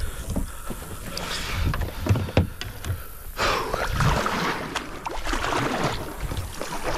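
A few knocks of gear and paddle against the kayak's plastic hull about two seconds in, then kayak paddle strokes dipping and splashing in the water.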